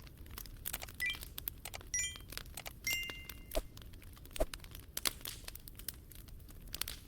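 Irregular crackling clicks and pops throughout, with a few brief high pinging tones in the first half.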